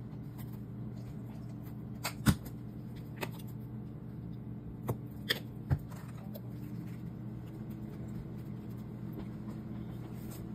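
Kitchen handling noises while sauce is squeezed from a plastic squeeze bottle onto bread: a few sharp clicks and knocks, the loudest about two seconds in and three more around five to six seconds in, over a steady low hum.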